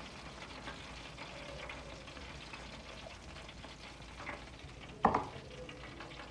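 Roasting turkey sizzling and crackling faintly as its juices spit in the hot pan, with a single sharp knock about five seconds in.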